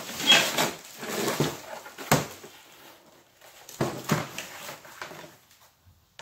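Cardboard packing and plastic wrap rustling and scraping as a cookware box is unpacked, a run of short rustles with a sharp knock about two seconds in, dying away near the end.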